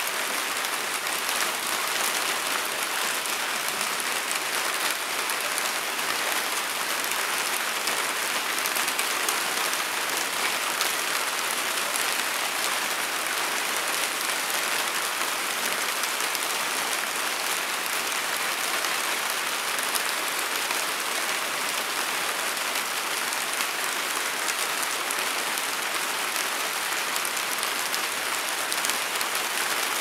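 Steady rain falling, an even hiss of drops that keeps on without a break.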